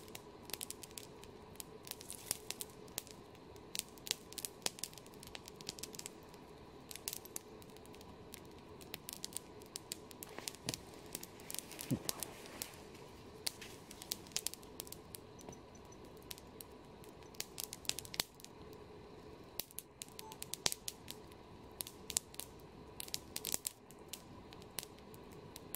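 Small wood campfire crackling, with frequent irregular sharp pops and snaps.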